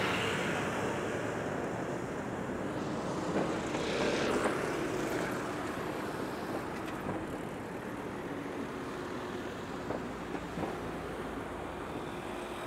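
City street traffic: motor scooters and cars passing close by over a steady background hum, one passing louder about four seconds in.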